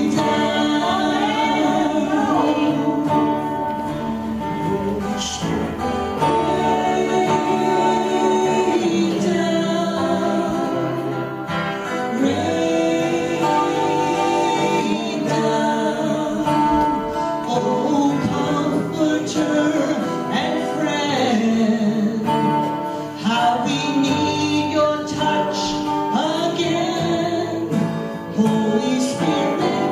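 A woman singing a gospel worship song into a microphone, accompanied by acoustic guitar.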